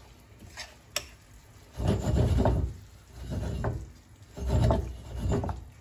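Spatula stirring and scraping minced meat in a pan: three rubbing strokes, with a light click about a second in.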